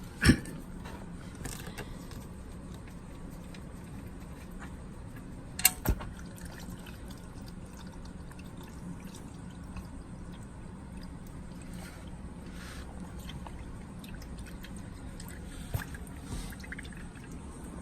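Hot engine oil pouring in a steady stream from the oil-pan drain hole of a 2016 Hyundai Veloster Turbo into a drain pan. A sharp click comes just after the start, and two louder knocks about six seconds in.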